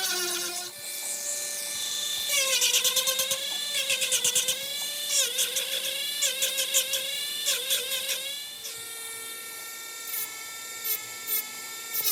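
Small high-speed rotary tool sanding: a motor whine that sags in pitch each time the tool bears on the work and recovers as it lifts off, with a gritty rasp while in contact. Later it runs more steadily at a slightly lower pitch.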